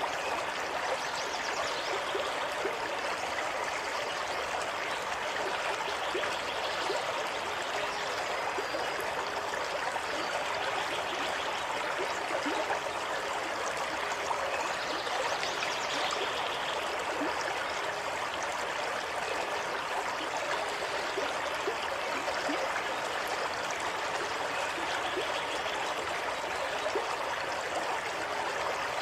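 Running water of a stream, flowing and babbling steadily with small bright gurgles and splashes.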